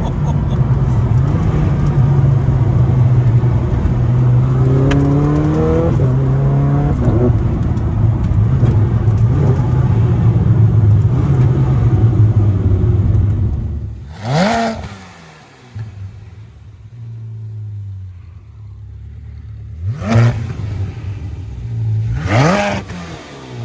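Zenvo TSR-S's twin-supercharged V8 running steadily under load for about fourteen seconds, then dropping to quieter running broken by three sharp rev blips, with the higher blip of the car's race gearbox mode.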